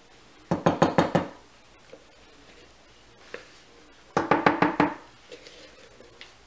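Silicone spatula rapped against the rim of a container to knock off thick soap batter, in two quick runs of about half a dozen ringing taps each.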